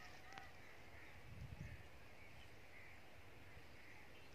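Near silence with faint bird calls in the distance, short calls repeating about every half second. There is a soft low thud about a second and a half in.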